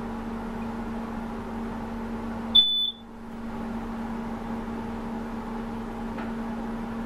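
A single short, high electronic beep about two and a half seconds in, over a steady low hum.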